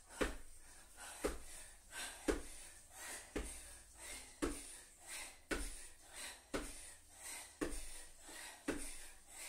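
Repeated squat-jump landings, trainers thudding on an exercise mat over a wooden floor about once a second, with heavy panting breaths between the jumps.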